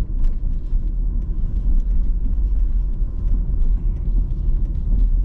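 Car cabin noise while driving slowly down a city street at about 30 km/h: a steady low rumble of engine and tyres.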